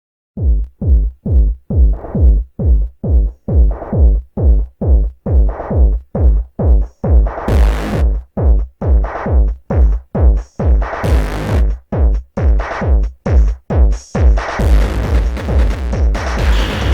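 Instrumental intro of an electronic futurepop track: a drum-machine kick beating steadily about twice a second, with short noise swells near 7.5 and 11 seconds in, and the full synth arrangement filling in near the end.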